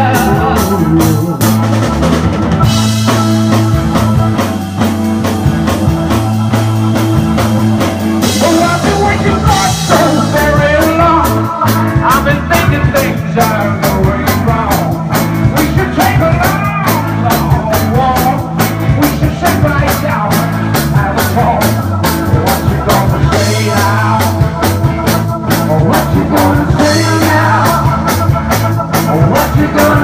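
Live 1960s-style mod rock band playing loudly: drum kit beating steadily, with electric guitar, keyboard and lead and backing singing. Cymbal crashes ring out about three seconds in, again around nine seconds, and near the end.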